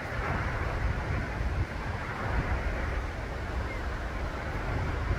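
Steady rushing roar of Takakkaw Falls, a tall waterfall, heard close to its base, with wind from the falls rumbling on the microphone.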